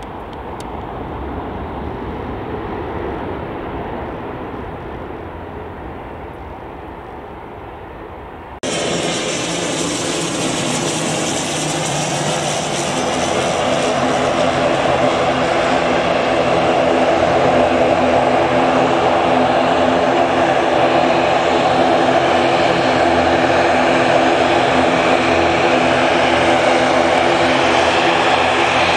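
For the first third, a twin-engine jet airliner rolling on the runway, its engines a steady rumble that swells and fades. Then an ATR 72-600 turboprop takes over: the drone of its twin propellers, a stack of steady tones that grows louder as it comes in and then holds.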